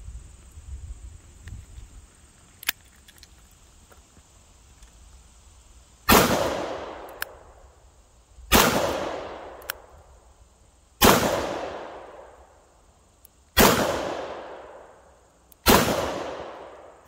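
Taurus Model 605 Defender .357 Magnum revolver, with a 3-inch barrel, firing five shots about two and a half seconds apart. This empties its five-shot cylinder. Each sharp report is followed by a long echo that dies away before the next shot.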